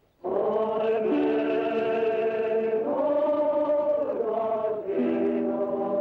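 Film score music of slow, sustained chords, starting about a quarter second in and changing every second or two.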